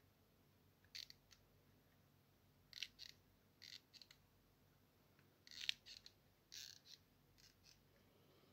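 Handling noise: about a dozen short, scratchy rustles, mostly in quick pairs, as a small black box is gripped and moved about in the hand. The loudest comes a little past the middle.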